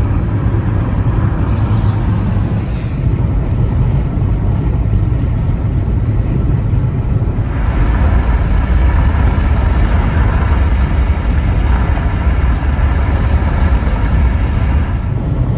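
Car on the road: a steady rumble of road and engine noise, which grows louder with added hiss about halfway through.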